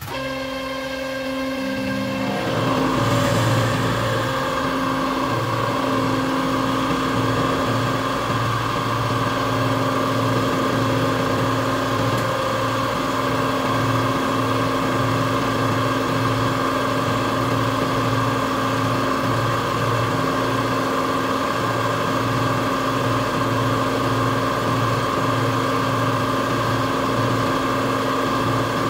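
A motor-driven machine starts abruptly and builds up over the first few seconds, then runs steadily with an even hum and a fast low pulsing.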